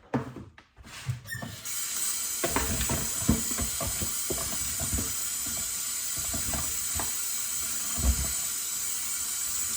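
Kitchen tap turned on about a second and a half in and running steadily into a sink, with scattered thumps and knocks of handling in the sink.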